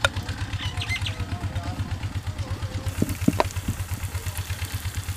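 An engine running steadily with a fast, regular low thudding beat, with a few sharp utensil clicks at the start and about three seconds in.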